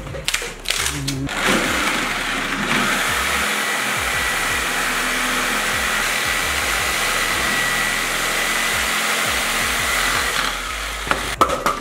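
A corded Black+Decker jigsaw cutting through a wooden tree branch, its motor running steadily with a faint whine as the blade saws. There are a few knocks in the first second or so and again just before the end.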